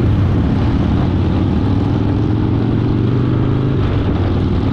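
Harley-Davidson Fat Boy's V-twin engine running steadily while the motorcycle rides at an even speed.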